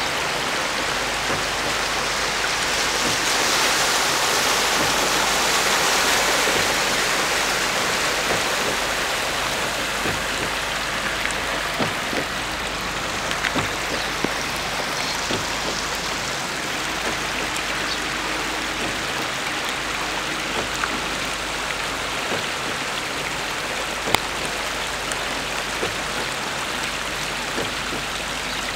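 Rainwater running in a flooded street with rain falling, a steady even hiss of water with small scattered drips and clicks, a little louder a few seconds in.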